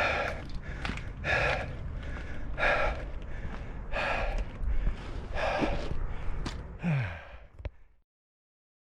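A man breathing heavily, out of breath from the climb, about one loud breath every second and a half, ending in a short falling voiced sigh before the sound cuts off suddenly.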